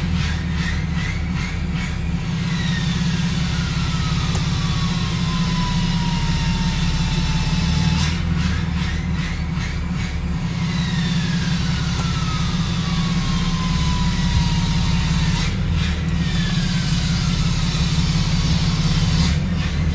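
6.7-litre Cummins inline-six turbodiesel idling steadily, with a high whine that slides down in pitch over about five to six seconds. The whine starts over three times, each restart marked by a cluster of quick clicks.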